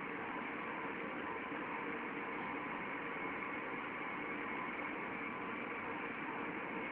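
Steady industrial machinery hum: a constant drone with a few faint steady tones over a hiss, with no distinct knocks or clanks.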